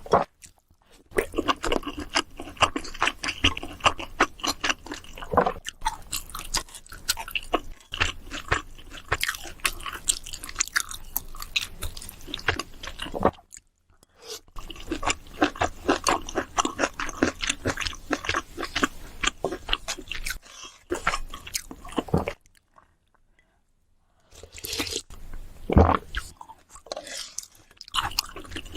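A person chewing food close to the microphone: quick runs of wet mouth clicks and smacks, stopping twice for a second or two.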